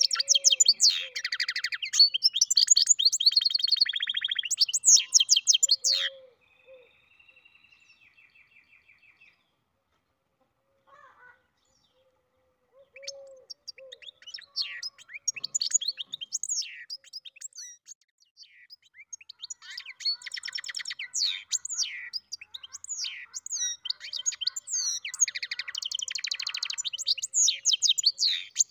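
Goldfinch × canary mule singing: a fast, varied song of high chirps and trills that breaks off about six seconds in, pauses for a few seconds of near silence, then starts up again and grows fuller in the second half.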